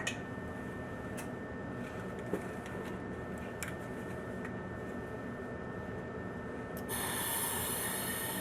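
Plumber's torch flame burning steadily, heating a copper fitting to solder a ball valve, with a few light clicks. About seven seconds in the hiss gets brighter and a little louder.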